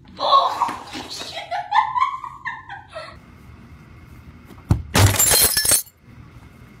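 A woman's voice cries out for a few seconds, its pitch rising and falling. Later a sharp impact is followed by glass shattering for under a second.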